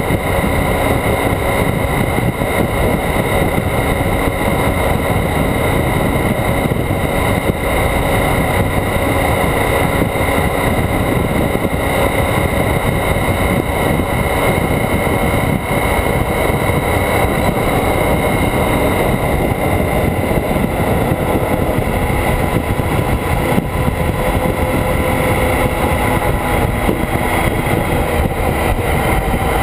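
Motorcycle cruising steadily at road speed: its engine running under a loud, even rush of wind and road noise.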